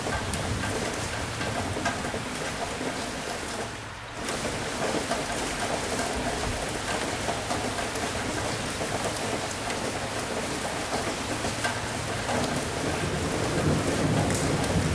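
Steady heavy rain falling, a dense even hiss with scattered droplet ticks, briefly dipping about four seconds in. A low thunder rumble swells near the end.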